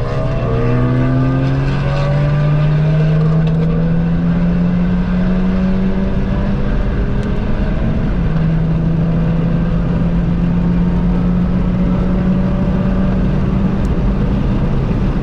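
2018 Honda Civic Type R (FK8) turbocharged 2.0-litre four-cylinder running loud through a catless downpipe and straight-pipe exhaust under steady acceleration. Its pitch climbs slowly, drops once about eight seconds in as at an upshift, then climbs slowly again.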